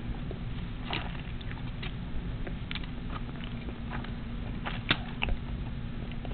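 Soft, scattered clicks and rustles of hands handling embroidery floss and tape on a project board, over a steady low hum.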